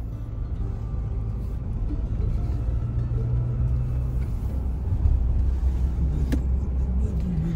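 Low, steady rumble of a car's engine and tyres on the road, heard from inside the moving vehicle, with a single sharp click near the end.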